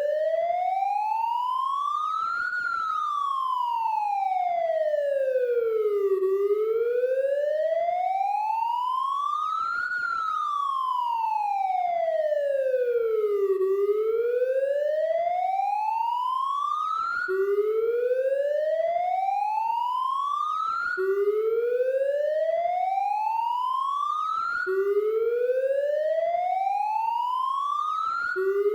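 Police siren wailing in a slow, steady rise and fall, each climb and drop taking a few seconds. Past the halfway point it changes to repeated rising sweeps that each snap back down to the low pitch and climb again.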